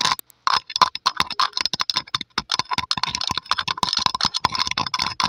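Long polished fingernails tapping and scratching on a microphone's metal mesh grille, close to the mic: rapid, uneven clicking taps with a brief gap just after the start.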